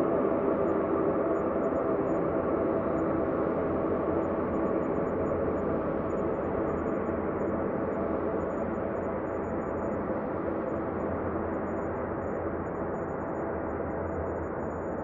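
Ambient space drone sound: a steady, dense humming drone of many held tones over a hissing rumble, slowly growing a little duller and quieter.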